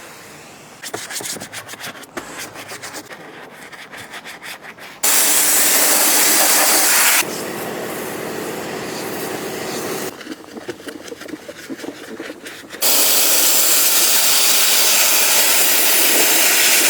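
Spray cleaning of an engine bay: long bursts of steady spraying hiss, one about two seconds and one about four and a half seconds long, with quicker broken scrubbing strokes between them.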